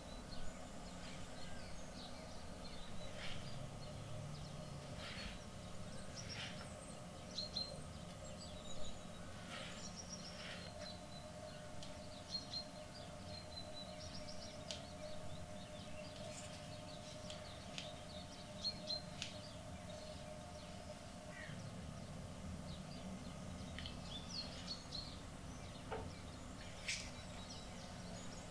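Silicone whisk stirring thick batter in a metal bowl: soft, irregular clicks and taps over a faint steady hum, with a few faint bird-like chirps behind.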